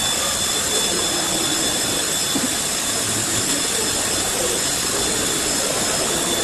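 Five-axis CNC machining center running: a steady, unchanging hiss with a constant high-pitched whine as its spindle drives a small cutter along an automotive engine cylinder block.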